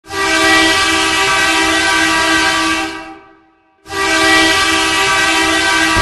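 Bakersfield Condors hockey goal horn sounding two long blasts, several steady tones at once. The first blast fades out about three seconds in, and the second starts just under a second later.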